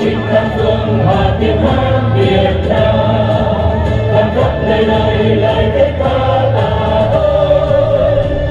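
Choir singing a Vietnamese song, held notes over a steady musical accompaniment.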